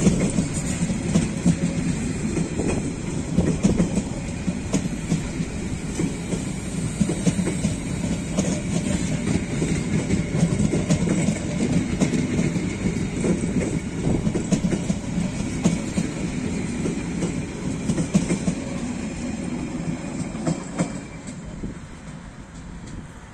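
Metlink passenger train carriages rolling past, wheels clacking over the rail joints above a steady rumble. About 21 seconds in the sound falls away as the last carriage moves off.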